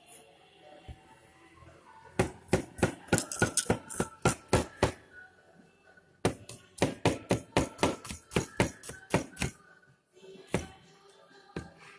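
A cleaver chopping shallots on a cutting board: rapid knocking strokes about five or six a second, in two bursts with a short pause between them.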